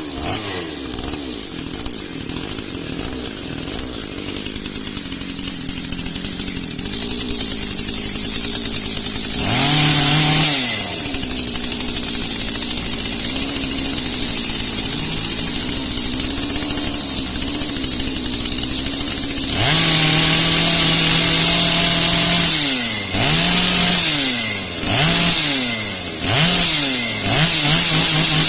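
Echo CS-680 two-stroke chainsaw engine running at idle with a slightly wavering pitch, revved briefly about a third of the way in, then held at high revs for about three seconds and blipped four times in quick succession near the end.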